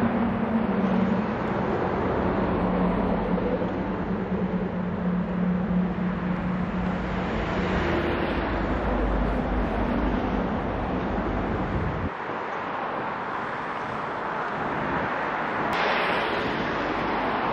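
Outdoor background of vehicle traffic, with a steady low engine hum under it that drops away abruptly about twelve seconds in.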